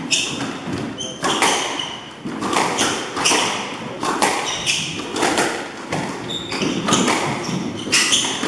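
Squash rally: the ball smacks off rackets and the walls about once a second, each hit echoing briefly in the court, with short squeaks of the players' shoes on the wooden floor in between.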